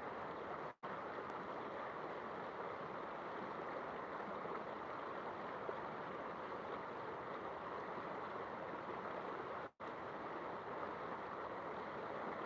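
River water flowing steadily. The sound cuts out for a split second twice, once near the start and once near the end.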